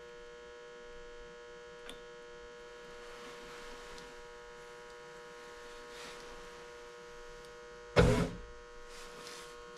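Steady electrical hum with an even stack of tones, and a brief loud knock about eight seconds in.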